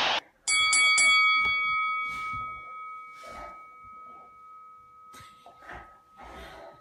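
Boxing ring bell struck three times in quick succession, then ringing on and slowly fading.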